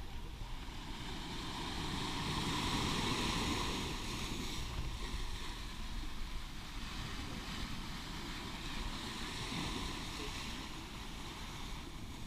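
Ocean waves washing up on the beach, the surf swelling about two seconds in and again near the end, with wind rumbling on the microphone.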